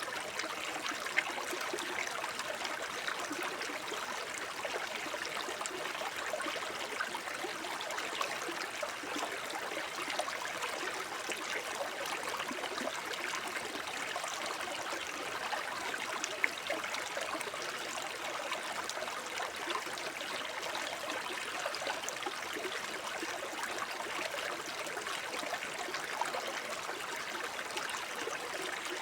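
Shallow forest brook babbling over stones: a steady stream of water with small trickles and splashes.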